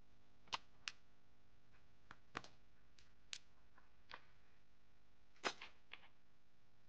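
Small sharp metallic clicks and taps of spring bars and a spring bar tool against the lugs of a gold watch case as a leather strap is fitted, about eight at irregular intervals, the loudest one about five and a half seconds in.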